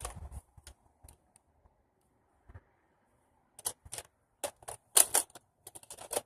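Plastic clicks and rattles from a Buzz Bee toy dart blaster being handled and loaded. A few light clicks come first, then a quiet stretch, then a quick run of sharp clicks in the second half.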